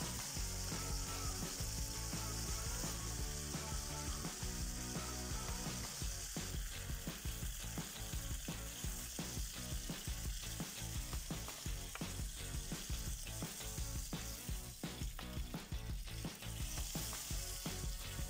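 Chicken leg quarters sizzling in hot oil in a nonstick wok, with metal tongs clicking and scraping against the pan as the pieces are turned and lifted out. The sizzle is strongest at the start and again near the end, and the tong clicks come thick and fast from about six seconds in.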